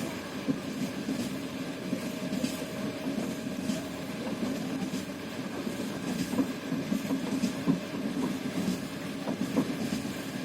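A moving train, its wheels clattering over the rail joints: a steady rumble with a knock every second or so.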